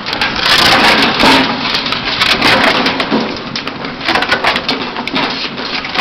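Wood being crushed and splintered by a firewood-processing machine: a dense, continuous crunching with many sharp cracks, loudest in the first second and a half.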